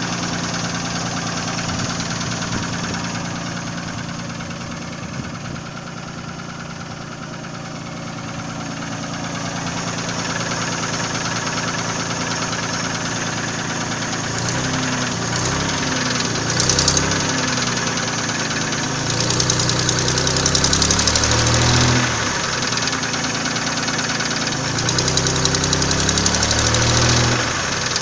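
Nissan VG30E 3.0-litre V6 engine idling with a knock, then revved up and down several times in the second half. The owner cannot place the knock and suspects the hydraulic lifters, a connecting rod or the pistons.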